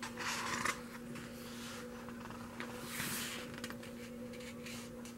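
Glossy photobook pages being turned by hand: a paper rustle just after the start and another about three seconds in, with a few light paper clicks, over a steady low hum.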